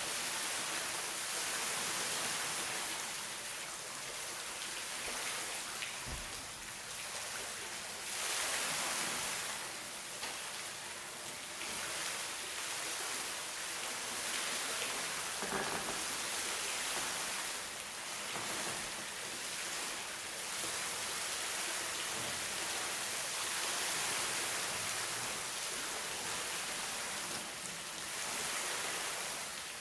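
Steady hiss of rushing water, swelling and easing gently every few seconds.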